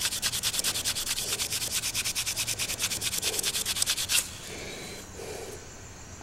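Sandpaper rubbed by hand over a steel pocket-knife blade in quick, even back-and-forth strokes. It is fine-grit sanding to clean corrosion and marks off the blade, and it stops suddenly about four seconds in.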